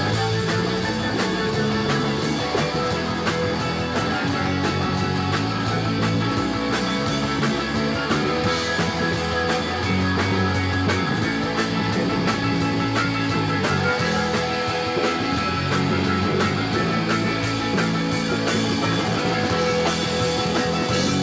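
Live rock band playing an instrumental jam on electric guitars, electric bass, keyboard and drum kit, with cymbals keeping a fast, steady beat.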